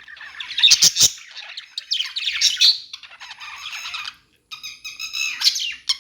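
Several budgies (parakeets) chattering together: overlapping chirps, squawks and short warbles, with a few sharp clicks about a second in.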